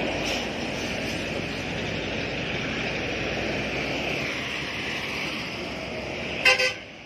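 Heavy trucks and buses passing on a wet motorway: a steady rush of engine and tyre noise. Near the end comes one short, loud pitched blast.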